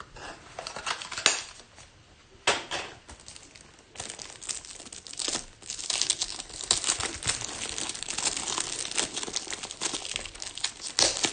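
Plastic shrink-wrap being torn and crinkled off a sealed trading card box: a few separate crackles at first, then steady crinkling from about four seconds in.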